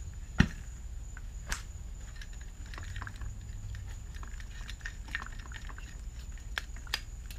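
Two-stroke motorized-bicycle engine being lifted and tipped by hand: a sharp metal knock about half a second in, further knocks and scattered light clicks of its parts, and water draining out of the engine, which had water inside it.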